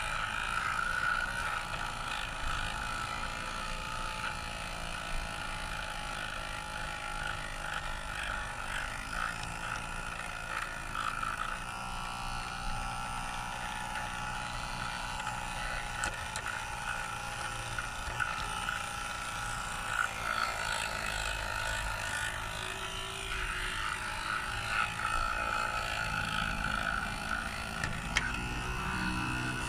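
Garden-railway model locomotive running along the track, its motor and gears whirring steadily, with a few sharp clicks along the way.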